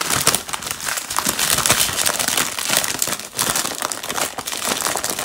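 Plastic bags and packaging film crinkling and rustling without a break as they are handled and pushed together.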